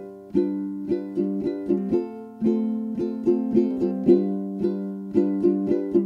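Background music of a plucked string instrument playing a run of quick notes, each struck and then fading.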